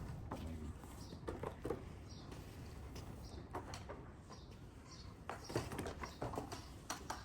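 A sheep's hooves stepping on a hard floor: scattered light knocks, with a few short high chirps among them.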